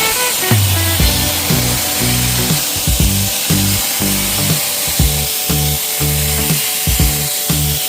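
Background music with a rhythmic, repeating bass line, over a steady high hiss.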